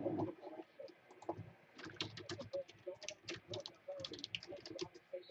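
Typing on a computer keyboard: a quick, uneven run of keystroke clicks, busiest from about two seconds in.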